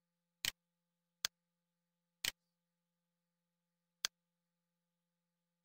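Computer mouse clicking: five short, sharp clicks at uneven intervals, the first and third heard as quick double clicks.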